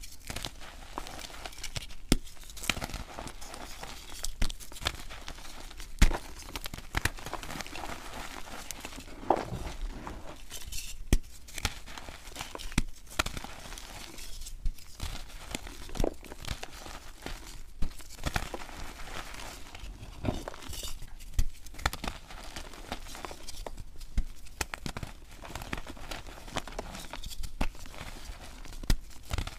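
Coloured gym chalk blocks crumbling and cracking as hands crush, break and rub them: a continuous dry, gritty crumble with frequent irregular sharp snaps as pieces break off.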